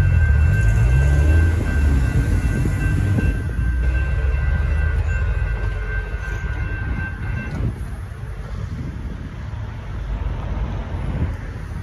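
Union Pacific double-stack intermodal freight train rolling past, its low rumble fading, with a steady high-pitched ringing that cuts off about seven and a half seconds in.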